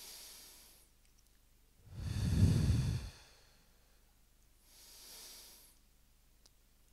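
A man breathing slowly and deeply into a handheld microphone in a belly-breathing exercise. A soft breath in is followed about two seconds in by a louder breath out that buffets the microphone, then another soft breath in around five seconds.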